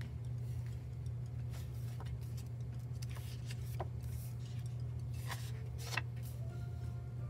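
Paper sheets of a sticker book rustling and flicking as pages are lifted and turned, a handful of short crisp sounds over a steady low hum.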